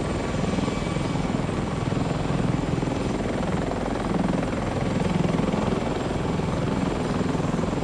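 Helicopter sound effect: steady, fast rotor chop, laid over a toy helicopter being flown by hand.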